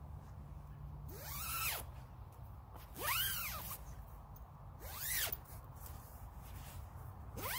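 The YKK anti-snag center zipper of an Outdoor Vitals Mummy Pod sleeping bag being run along its length: four zips about two seconds apart, each a short rasp that rises and then falls in pitch.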